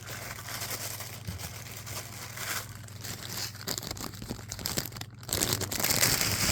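Packaging crinkling and rustling as it is handled, louder near the end.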